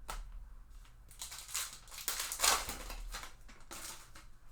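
Crinkling and rustling of trading-card packaging and cards being handled, most likely a foil pack being torn open. There are several short rustles, with the loudest crinkle about halfway through.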